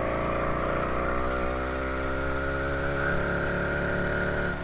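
80cc two-stroke motorized-bicycle engine running under way, a steady buzzing note that rises slightly about three seconds in and drops near the end. The rider calls it really clunky.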